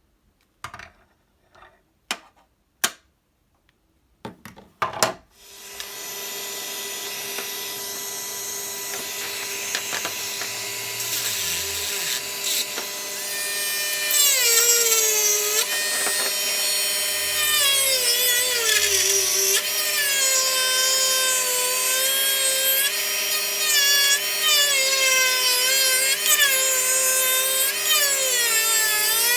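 A few handling clicks, then from about five seconds in a small handheld power tool runs and cuts continuously. Its motor whine dips in pitch again and again as it bogs under load and recovers.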